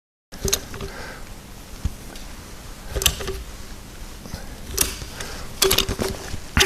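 Several sharp clicks and knocks, about five of them spread over a few seconds, over a low room hiss, some with a brief short tone after them.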